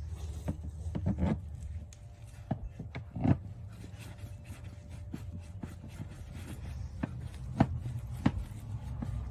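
A hand screwdriver driving brass bolts through a rubber pond liner into an Aquascape 1000 skimmer faceplate: scattered clicks and taps of the tool and bolts, with the liner rubbing, over a steady low rumble.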